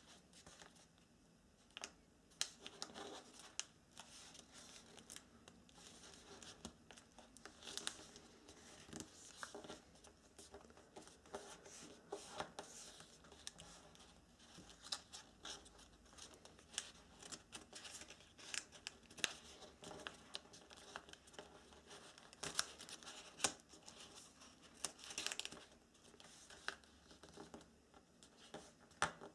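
Folded origami paper rustling and crinkling as hands fold, press and tuck paper units together, in irregular crisp rustles and clicks.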